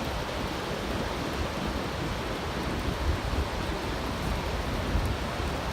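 Ocean surf washing on a beach as a steady hiss, with gusty wind rumbling on the microphone.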